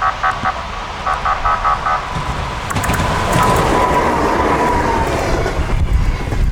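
Rapid electronic beeping in short pulses. About two seconds in, the rumble of an EP2K electric locomotive hauling a passenger train swells as it passes, with a high whine falling in pitch.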